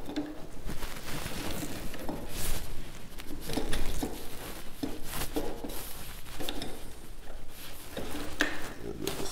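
A metal bar clamp being fitted and tightened by hand, clamping an aluminium bar to a wooden bench top: scattered clicks, knocks and scrapes of metal on metal and wood.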